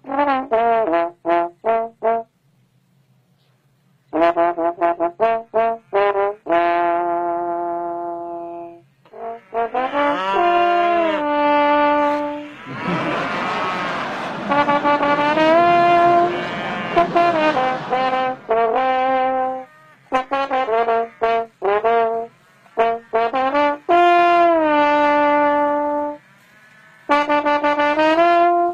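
Trombone played solo, a tune of quick staccato notes mixed with longer held notes. It pauses briefly about two seconds in, and a louder, rougher-toned passage comes in the middle.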